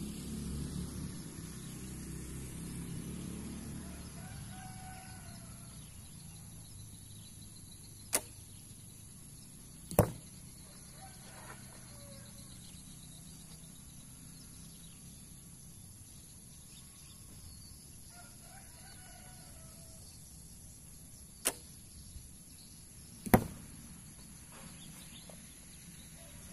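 Two shots from a traditional bow. Each is a sharp snap of the string on release, then about two seconds later a louder thud as the arrow strikes the target about 70 m away.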